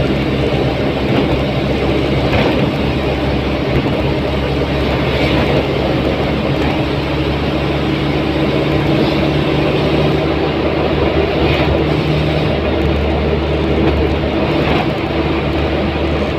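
Steady engine hum and tyre and wind rumble heard from inside a vehicle cruising at highway speed.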